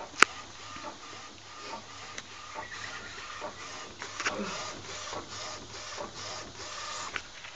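Epson T1100 inkjet printer converted for direct-to-garment printing, running a print job: the print head carriage whirs and clicks as it passes back and forth over the shirt platen. A single sharp click comes just after the start.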